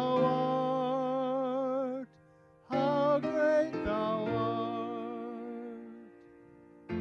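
A man singing a slow hymn into a microphone, holding long notes with a wide vibrato, over an instrumental accompaniment. Two sung phrases, with a short break a little after two seconds; the second fades out about six seconds in.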